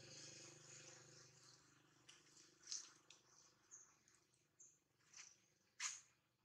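Near silence with faint sounds of macaques grooming: scattered soft clicks and smacks, the loudest about six seconds in, and a few brief high chirps. A faint low hum fades out in the first second or two.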